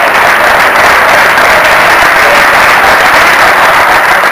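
Audience applauding steadily as the next person is called up to the stage.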